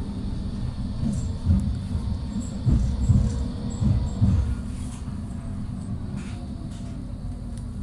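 Tram running along the track, heard from inside the passenger car as a low rumble, with a few louder jolts in the first half that settle into a steadier, quieter rumble after about five seconds.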